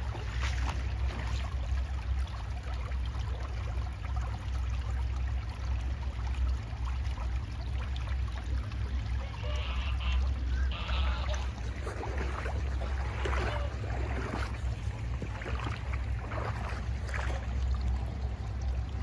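Wind rumbling steadily on the microphone over a light trickle of spring water running among stones and gravel. A string of short scratchy sounds comes in the second half.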